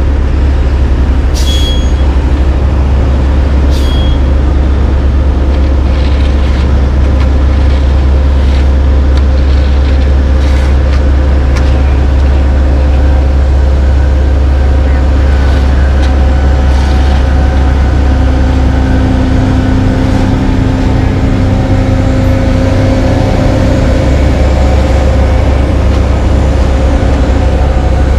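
Heavy diesel engines of a dump truck and a CAT AP655F asphalt paver running steadily as the truck's dump box tilts up to feed asphalt into the paver, a deep continuous rumble. A few short hisses break in, twice in the first seconds and again further on.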